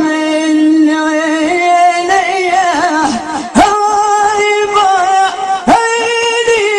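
A man singing an Arabic folk song in long, held notes that waver and slide between pitches, with new phrases starting sharply twice in the second half.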